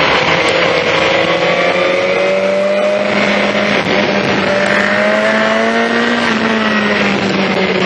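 BMW S1000XR's inline-four engine through an Akrapovic exhaust, held at steady high revs under way, its pitch creeping up and then dropping a little about six seconds in, with wind noise behind it.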